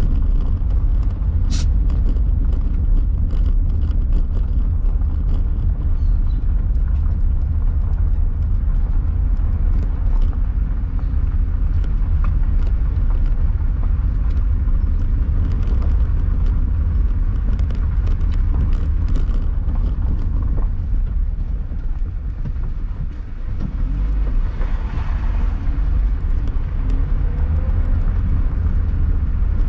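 Car driving slowly over a dirt road of loose stones, heard inside the cabin: a steady low rumble of tyres and engine with scattered small clicks of stones. There is one sharp click about a second and a half in, and the rumble eases briefly a little past two-thirds through.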